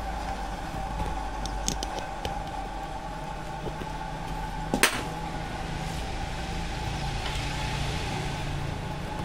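Steady mechanical hum of a running engine or machine, with one sharp click about five seconds in; a lower hum comes up more strongly in the second half.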